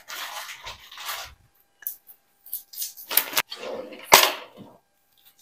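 Groceries being handled and put away: rustling, then two sharp knocks about three and four seconds in, the second the loudest.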